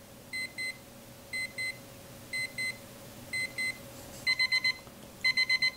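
Battery alarm clock going off with electronic beeps: double beeps about once a second, then, about four seconds in, quicker runs of four beeps, the alarm stepping up its pattern.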